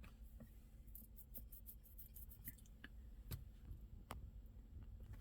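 Near silence: faint quick clicking for a second or two, then a few single sharper clicks, over a low steady hum.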